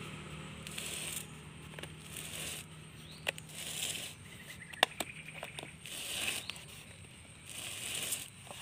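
Soft plastic nursery pot being handled and turned on a tiled floor: repeated bursts of scraping and crinkling, with a few sharp clicks in the middle.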